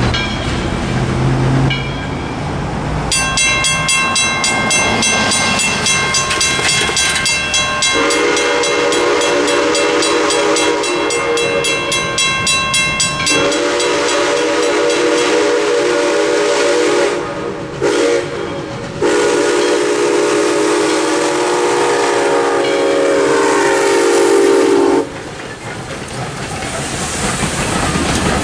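A grade-crossing bell starts ringing about three seconds in. Over it, Southern Railway 4501's steam chime whistle sounds the crossing signal: long, long, short, long. Near the end the 2-8-2 Mikado steam locomotive and its tender roll over the crossing.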